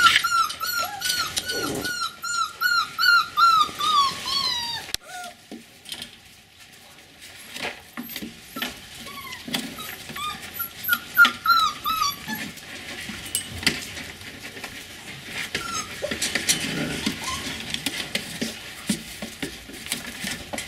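Border collie puppies whining, a quick run of short, high, arching cries at about three a second that stops about four seconds in and comes back briefly about eleven seconds in. Scattered clicks and rustling between and after the whines.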